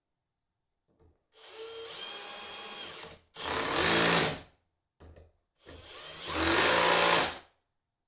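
Handheld electric drill-driver running in several bursts: a moderate run, then a louder full-speed run, a short blip, and a last run that builds up to full speed and stops.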